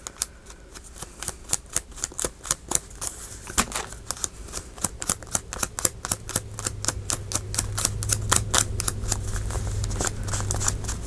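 Rapid tapping of an ink blending tool dabbed over and over onto paper to ink the edges of a paper cut-out, speeding up and getting louder in the second half. A low steady hum comes in about four seconds in.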